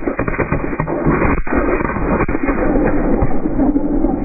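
Ground fountain firework spraying sparks: a loud, steady hissing rush with dense crackling all through.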